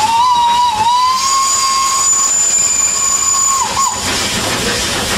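Steam whistle of a 1902 German-built steam locomotive blowing one long note, its pitch wavering at first, then cutting off a little under four seconds in. A loud steam hiss follows.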